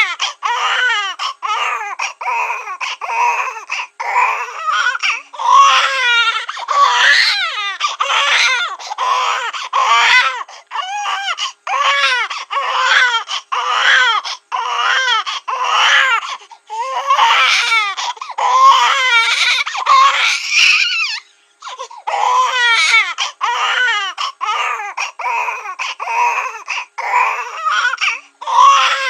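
Cartoon baby-crying sound effect: a high-pitched infant wail in short, repeated sobbing cries, breaking off briefly about three-quarters of the way through.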